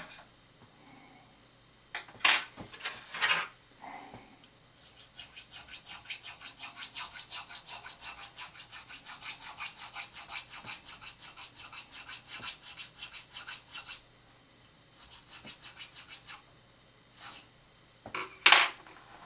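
Rapid back-and-forth abrasive strokes, about five or six a second, of hand shaping work on a knife held in a knife-maker's vise: one long run of about nine seconds, then a short second run. A few loud knocks come before the strokes and again near the end.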